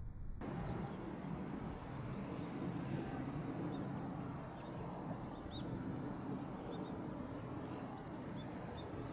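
Open-air ambience with a steady low rumble that cuts in abruptly just after the start. Faint, short, high bird chirps come a few times from about halfway through.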